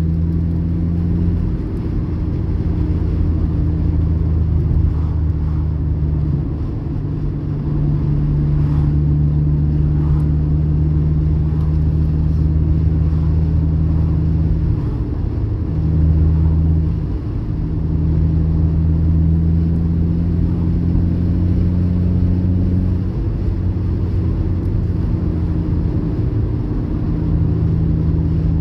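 Car engine running under throttle, its note shifting up and down a little as the accelerator pedal is pressed and eased, heard from inside the car.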